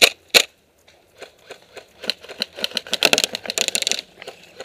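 Airsoft rifle fired twice in semi-auto right at the start, then after a short pause a fast, quickening clatter of clicks and rattles that is densest about three to four seconds in.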